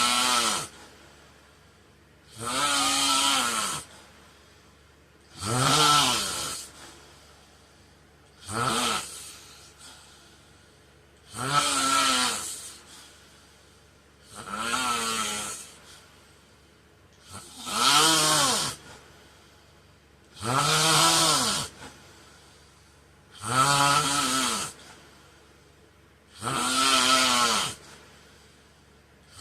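A man snoring in his sleep: about ten snores, one every three seconds, each lasting about a second with a pitch that rises and then falls.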